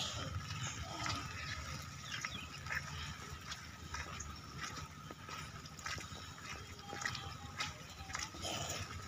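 Footsteps on wet stone paving, about one or two steps a second, over a steady low outdoor rumble.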